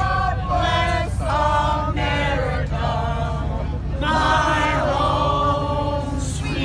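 A group of people singing together loudly in long held phrases, over a steady low hum.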